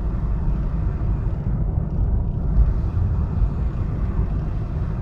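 Steady low rumble of a moving car, engine and tyre noise on the road, heard from inside the cabin.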